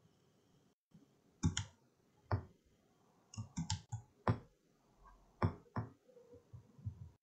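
Computer mouse clicking: a dozen or so sharp clicks at irregular intervals, several in quick succession about halfway through.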